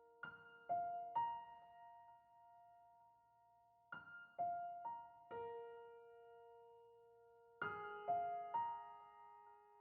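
Slow, gentle solo piano background music, single struck notes that ring out and fade, in small groups a few seconds apart.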